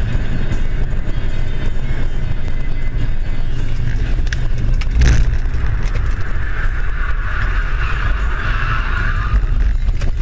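Car interior road rumble from a dash cam. There is a thump about five seconds in, then a rasping hiss of tyres sliding sideways for about three seconds as the car loses control and skids off the road.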